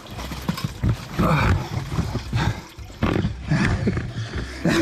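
A man groaning and grunting hard with effort in several short bursts while clambering up a steep slope.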